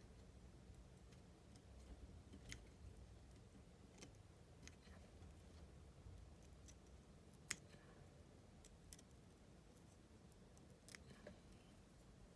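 Faint scattered clicks and snips of fly-tying tools at work, with one sharper click about seven and a half seconds in, over a low steady hum.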